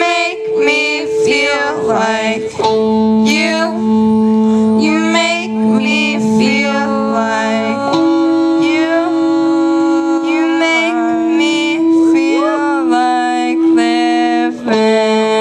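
Live band song: electric guitar and long held keyboard chords under two singers, the chords changing every few seconds.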